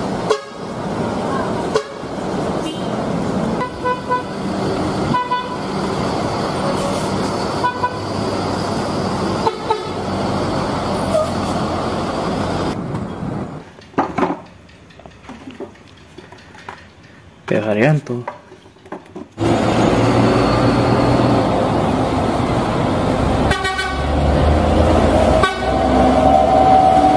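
Busy bus traffic with several short horn toots, then a brief quiet stretch with a single spoken word, then a bus engine running loud with a held horn note near the end.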